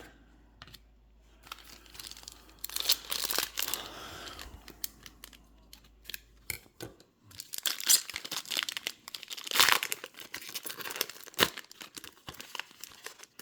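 A hockey card pack wrapper being torn open and crinkled by hand, with irregular rustling and sharp crackles and a few louder rips.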